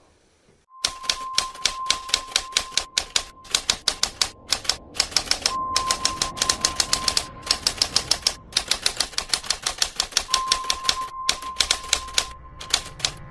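Typewriter sound effect: rapid runs of key clacks with short pauses, starting about a second in, with a steady high tone held under several of the runs.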